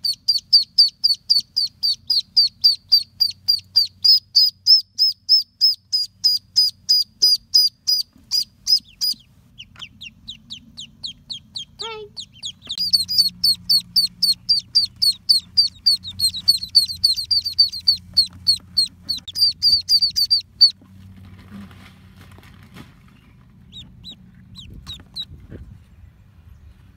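Mallard ducklings peeping loudly in rapid, continuous series of short, high, falling peeps, about four a second. After about twenty seconds the peeping dies down to a few scattered peeps.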